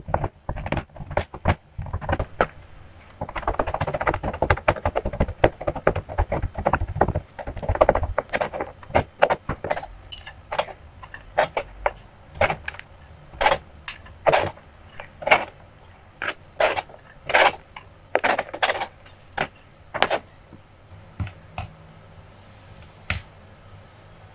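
Chef's knife chopping a bar of white chocolate on a cutting board: separate chops, then a few seconds of fast, dense chopping, followed by a string of sharp taps and clicks about once or twice a second that fade out near the end.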